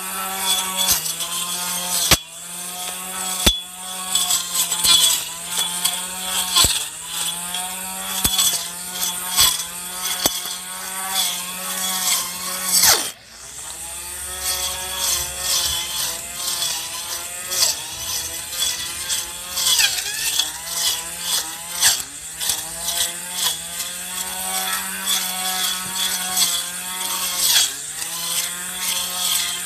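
Handheld grass trimmer with a spinning toothed disc blade running and cutting weeds: a steady motor hum whose pitch dips as the blade bites into the growth, with sharp clicks from the blade striking grit and stones. It cuts out briefly about 13 seconds in, then runs again.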